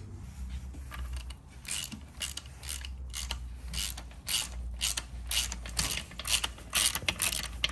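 Hand ratchet clicking in quick, regular strokes, about three a second and louder in the second half, as a crankshaft bearing cap bolt is slowly tightened by hand on a John Deere engine block, the bolt drawing the cap into line.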